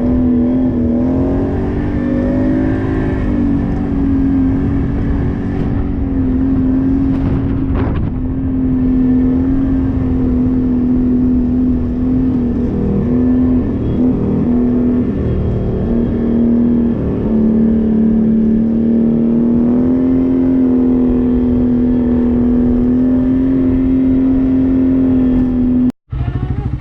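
Off-road vehicle engine running steadily under way at a fairly constant pitch, easing off and picking up again briefly a few times midway. The sound cuts out abruptly for a moment near the end.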